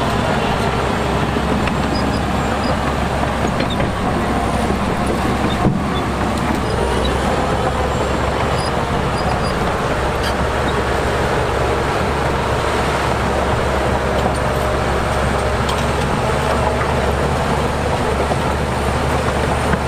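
Heavy diesel engines of earthmoving machinery running steadily, with one brief knock about six seconds in.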